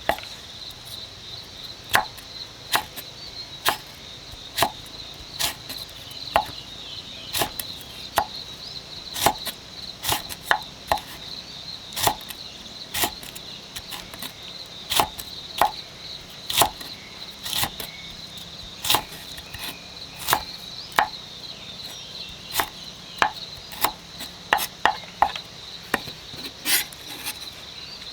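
Knife chopping on a wooden board in separate, irregular strokes, about one or two a second, over a steady high buzzing of insects.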